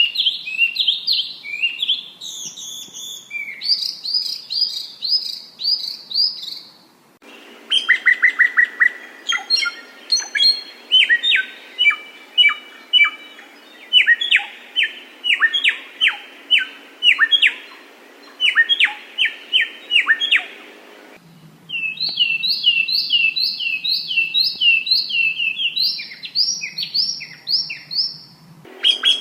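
Recorded song of small songbirds edited into a combination track for training other birds: fast series of short, high chirping notes and trills, in three spliced recordings with abrupt cuts about seven and twenty-one seconds in.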